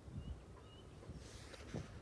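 Faint riverside ambience: low wind rumble on the microphone with two short, faint high bird chirps in the first second, and a brief rustle about a second and a half in.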